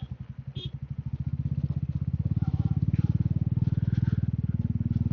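Royal Enfield Meteor 350's single-cylinder engine running under way, with rapid, even exhaust pulses. It grows louder about a second and a half in as the throttle is opened.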